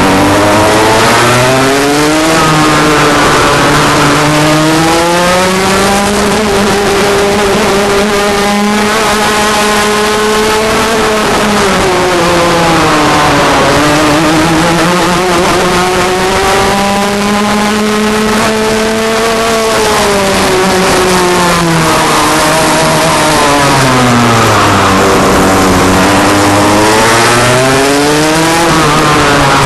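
Rotax Max 125cc single-cylinder two-stroke kart engine at racing speed, heard from the driver's helmet. Its pitch climbs and drops several times as it accelerates and slows for corners, over a steady hiss.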